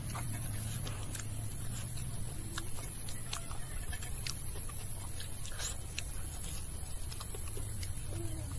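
Quiet eating by hand: soft chewing and scattered small clicks and pats as fingers gather rice on a metal plate, over a steady low hum.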